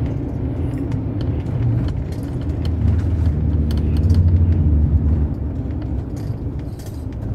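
Road and engine noise inside a Winnebago Travato camper van driving a winding road. The low rumble swells into a deeper engine drone for a couple of seconds in the middle, with small clicks and rattles from the cabin.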